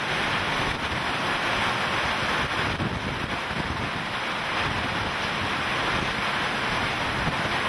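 Hurricane Katrina's wind blowing hard and steadily, buffeting the microphone.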